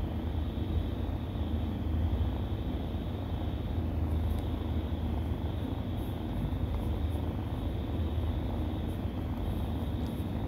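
Cat purring close to the microphone during nursing: a steady low rumble that swells and eases slightly with each breath, with a few faint clicks in the second half.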